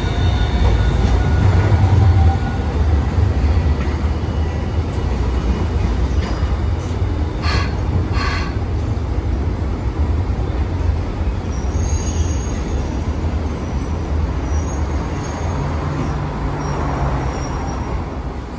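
Hiroshima streetcars at a stop. A low-floor Green Mover APEX tram rolls by with a steady low rumble, strongest at first, then an older high-floor tram stands at the platform as the rumble eases. Two short sharp sounds come about seven and a half seconds in.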